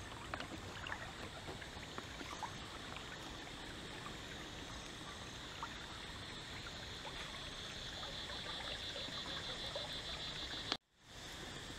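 Shallow stream trickling steadily, with scattered light taps and a steady high-pitched drone that grows louder toward the end. The sound cuts out suddenly for a moment near the end, then resumes.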